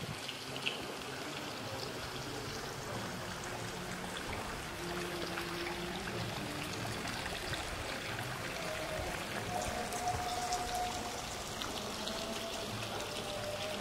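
Water splashing steadily from a tiered garden fountain.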